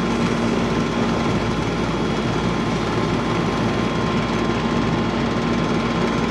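Air conditioner's outdoor condensing unit running steadily, the compressor and condenser fan making an even hum with a few constant tones. It is running low on refrigerant, with high superheat, while a small amount of refrigerant is being added.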